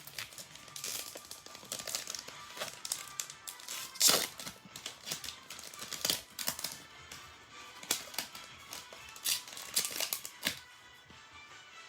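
Trading cards and foil pack wrappers being handled: crinkling, with card edges sliding and tapping, and a louder rustle about four seconds in. Faint background music plays under it.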